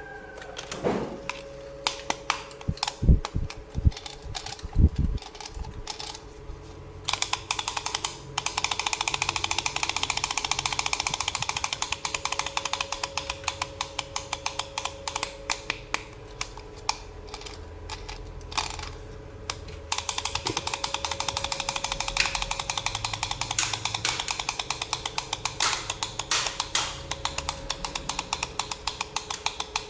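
Rapid clicking and rattling of small hard toy parts being handled, in dense runs with single sharp knocks in between, over a faint steady tone.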